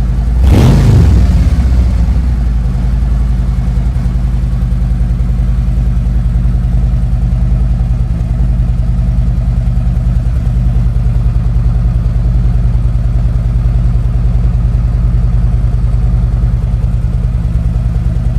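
V-twin motorcycle engine running through new Vance & Hines 4.5-inch High Output slip-on mufflers: a quick throttle blip about half a second in, then a steady, loud idle.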